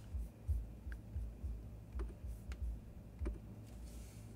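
A few separate key clicks on a MacBook Pro laptop keyboard, about a second apart, as light power values are typed in, with soft low thuds between them.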